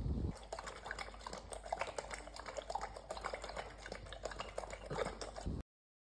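Liquid dripping and splashing in quick, irregular small drops, cutting off suddenly near the end.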